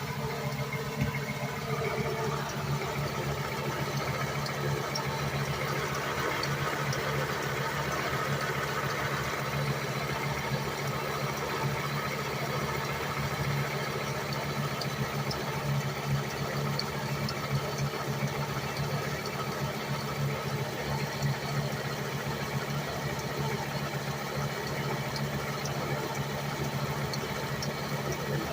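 1998 Volvo S70's five-cylinder engine idling warm, with a faint rhythmic chirping over the steady engine hum. The owner suspects the chirp comes from the crankshaft pulley or harmonic balancer.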